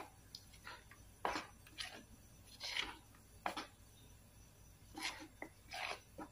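Spoon stirring thick flour batter in a bowl: faint, irregular short scrapes and knocks, about a dozen strokes.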